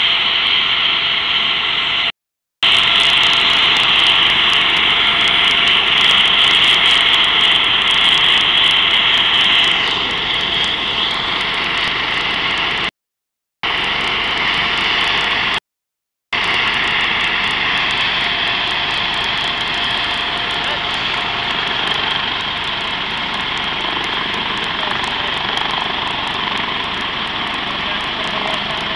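Helicopter on the ground with its turbine engines running and rotor turning: a loud, steady high-pitched turbine whine over rotor noise, easing slightly after about ten seconds. The sound cuts out briefly three times.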